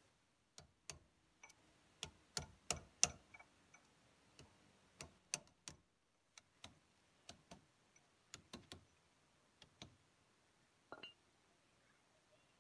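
A hammer tapping on a short steel pipe used as a drift, driving a greased tapered roller bearing onto a Swaraj 744 FE tractor's front wheel spindle: about two dozen sharp metallic taps at an uneven pace, some in quick pairs.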